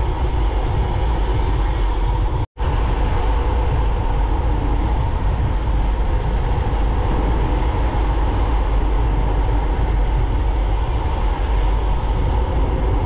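Wind rushing over the microphone and tyre rumble from a road bike descending at speed: a loud, steady rush heaviest in the low end. It cuts out for an instant about two and a half seconds in.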